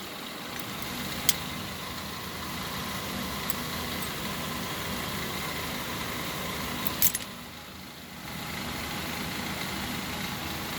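A steady engine-like hum with a few sharp metallic clicks as metal hair curlers and crimpers are handled, the loudest about a second in and twice in quick succession around seven seconds; the hum dips briefly just after.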